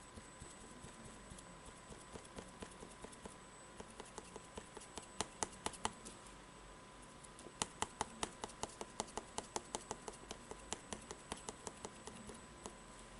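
A round paint dabber tapping on cardboard as paint is stippled on: quick light taps, about four a second, in two runs with a short pause about halfway.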